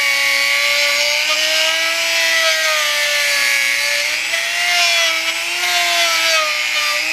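Dremel-type rotary tool running with a polishing bit pressed against the painted spokes of a motorcycle wheel: a steady high motor whine whose pitch sags and recovers as the bit is pressed and eased, over a rubbing hiss.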